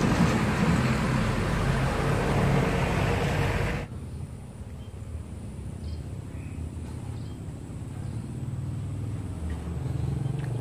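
Engine noise of a motor vehicle, loud and steady for the first few seconds and cutting off abruptly. A fainter engine hum then builds again near the end.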